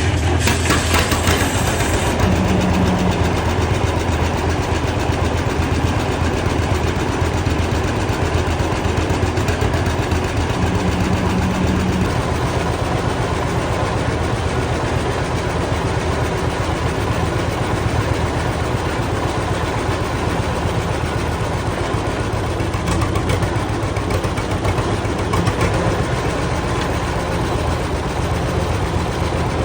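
Old farm tractor engine running steadily.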